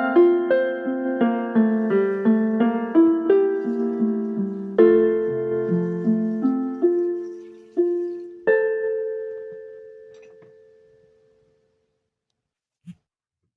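Background piano music: a slow melody of single notes over a low bass line, ending on a held chord about eight and a half seconds in that fades away to silence. A faint click near the end.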